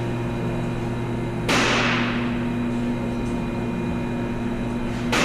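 A steady machine hum, with two sudden hissing bursts that fade within about a second: one about a second and a half in, one at the very end.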